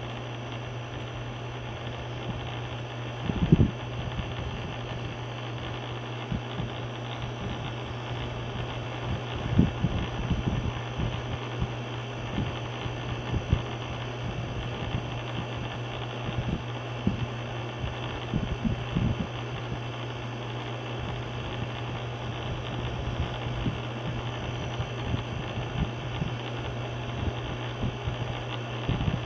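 Mabuhay Star clip-on mini ceiling fan running together with an air conditioner: a steady low hum under an even rush of moving air, with scattered low bumps, the strongest about three and a half seconds in.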